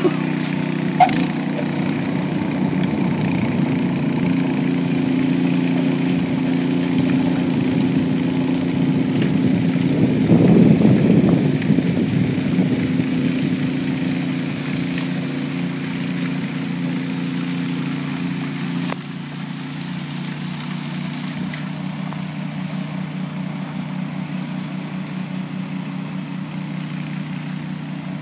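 Restored Honda HS80 snowblower engine running steadily under load as it chews through hard-packed plowed snow, with a hiss of thrown snow. The engine swells louder about ten seconds in. The hiss stops and the sound drops a step about two-thirds of the way through.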